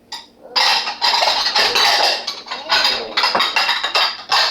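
Plastic magnetic alphabet letters and numbers clattering together in quick, loud, irregular bursts, as if handled or rummaged in a pile, starting about half a second in.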